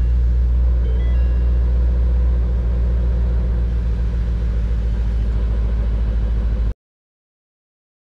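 Ford Shelby GT350's 5.2-litre flat-plane-crank V8 idling steadily, a deep even rumble, which cuts off abruptly near the end.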